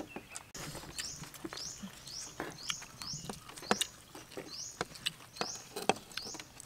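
Wooden chopsticks clicking and tapping against porcelain plates and a metal tray as rice noodles are picked up. A short rising chirp repeats in the background about twice a second.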